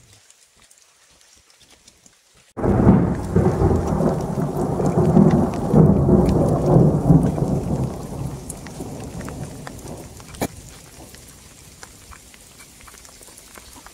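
A thunderclap breaks in suddenly about two and a half seconds in and rumbles for several seconds before fading away, with scattered raindrop ticks in light mountain rain.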